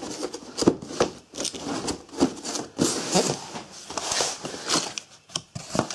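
Cardboard firework boxes and packets being handled and shifted by hand: irregular rustling and scraping with light knocks.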